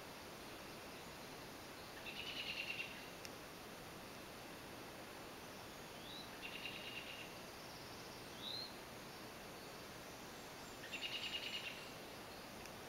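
A songbird singing a short, buzzy, trilled phrase three times, about every four to five seconds, with two brief rising chirps in between, over a steady background hiss.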